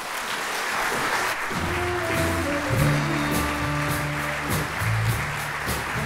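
A large audience applauding. About a second and a half in, music starts, a line of stepped, held notes over a bass, and plays on over the applause.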